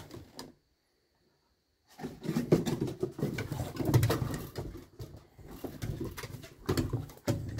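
Brittany puppy and its mother at play: low play growls, with paws and claws scuffling and clicking on wooden porch boards. The sound cuts out for over a second near the start, then comes back in uneven bursts.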